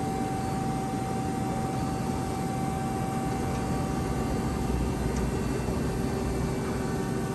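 Mazak Quick Turn 250 CNC lathe running with its hydraulics and motors humming steadily under a hiss. A held whine gives way to a lower one about four and a half seconds in.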